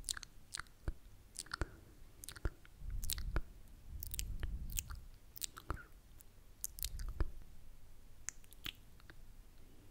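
Close-miked ASMR mouth sounds: scattered wet clicks and smacks from the lips and tongue, a few each second, with low muffled rumbles at times.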